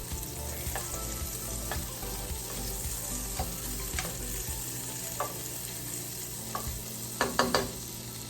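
Butter melting in hot olive oil in a pan, sizzling steadily while being stirred, with scattered light taps of the utensil on the pan and a quick run of clicks near the end.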